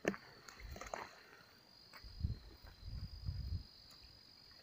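A steady, high-pitched insect trill that does not break, with a few soft low thumps about two to three and a half seconds in.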